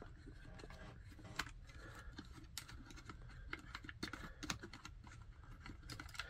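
Faint handling noise of a plastic ring light and its phone clamp: scattered light clicks, taps and rubbing as the parts are twisted and worked loose.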